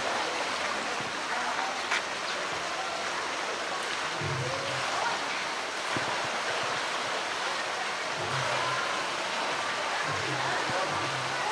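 Steady rushing water with splashing as a polar bear swims and dives in its pool.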